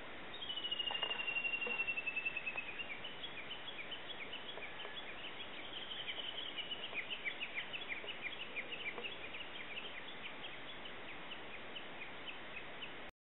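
A bird singing outdoors: one long high whistle, slightly falling, lasting about two seconds near the start, then a long run of short, quick high notes, over a steady background hiss. The sound cuts off suddenly just before the end.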